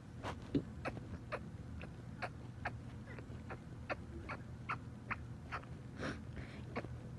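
A person sneezing uncontrollably in a rapid run of short, sharp, stifled sneezes, about two to three a second, with a fuller one about six seconds in. It is a rhinitis sneezing fit.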